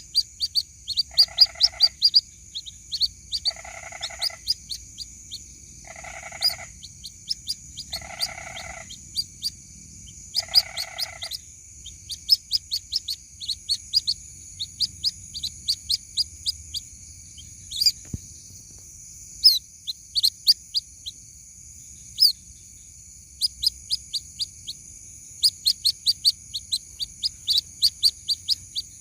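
White-breasted waterhen chicks peeping: short high-pitched chirps in rapid runs of several a second, the calls used as a lure to draw in the parent. For the first eleven seconds a lower, longer call repeats about every one and a half seconds, and a steady high-pitched buzz runs underneath.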